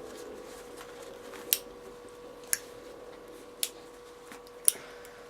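Zippo lighter's metal lid clicking sharply four times, about a second apart.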